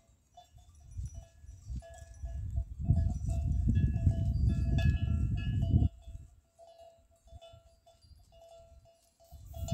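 Small livestock bell on a grazing goat clinking on and off, a thin ringing tone that comes and goes. From about three to six seconds in, a loud low rumble of wind on the microphone covers it.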